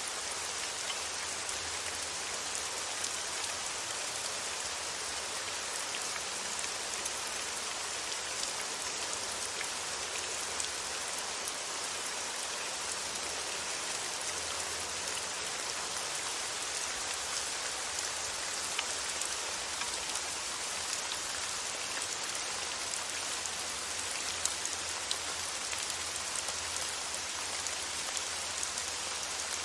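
Steady rain: an even hiss of falling rain with a fine patter of drops.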